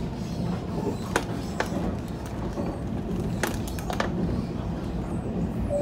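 Train running at speed, heard from inside the carriage: a steady low rumble with several sharp clicks scattered through it.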